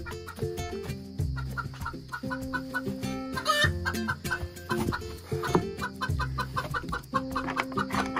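Silkie chickens clucking over background music with held chords.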